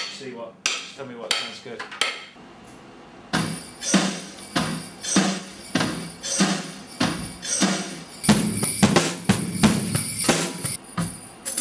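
Drum kit played in a steady beat, hits coming about twice a second, with a tambourine mounted on the hi-hat jingling along. A few scattered knocks come first, then the beat starts about three seconds in.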